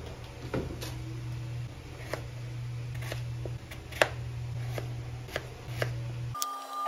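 Kitchen knife chopping through a peeled potato onto a plastic cutting board: a string of sharp knocks, the loudest about four seconds in, over a steady low hum. Near the end the sound cuts to a steady mechanical whine.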